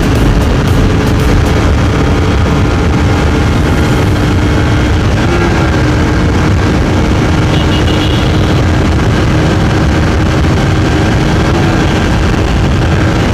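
Bajaj Pulsar RS200's single-cylinder engine running at high, steady revs during a top-speed run, its pitch holding nearly constant, under loud wind rush on the microphone.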